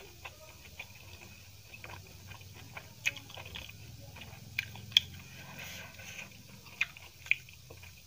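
Close-up mouth sounds of a person chewing a large vegetable momo: soft wet chewing broken by several sharp smacks and clicks, the loudest about five seconds in.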